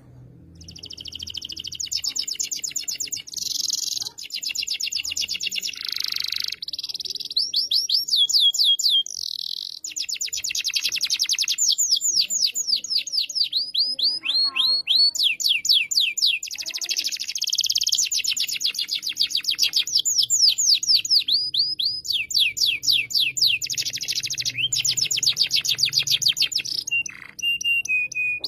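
Domestic canary singing an almost unbroken song of rapid trills, each a fast run of repeated high, down-sweeping notes, switching to a new trill every second or two with short breaks between phrases.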